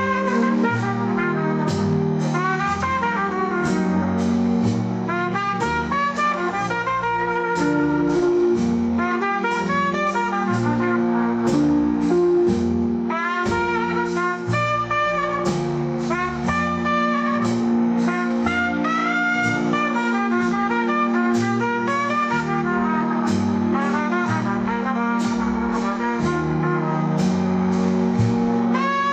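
Instrumental jazz: a lead horn line over stepping bass notes and drums.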